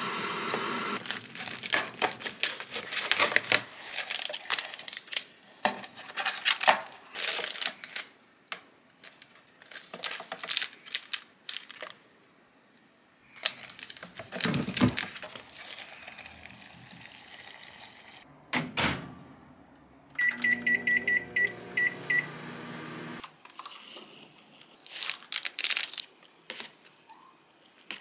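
Packaging crinkling and tearing and utensils clicking as an instant cup udon's lid and sauce sachets are torn open. About twenty seconds in, a kitchen appliance gives a rapid run of short beeps over a steady hum for a couple of seconds.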